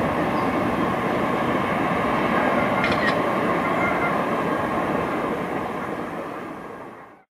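Passenger train coaches rolling away on the rails, a steady running noise of wheels on track that dies away near the end.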